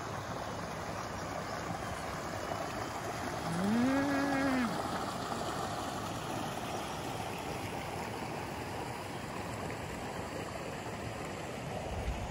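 Floodwater rushing steadily over the broken-away end of a paved road, where the torrent has breached it. About four seconds in, a person makes a short wordless voice sound, about a second long, that rises and then falls in pitch.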